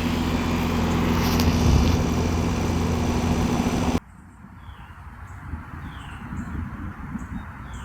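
A motor runs loudly and steadily with an even hum, then cuts off abruptly about four seconds in. Softer ambience follows, with a few short, high, falling bird chirps.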